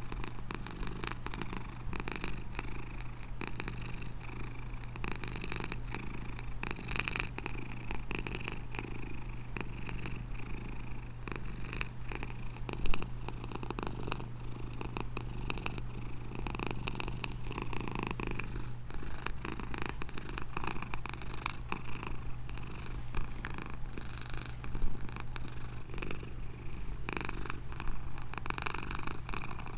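Domestic cat purring steadily in a fast, even pulsing rhythm. Two brief louder spikes break through, one a little before halfway and one later on.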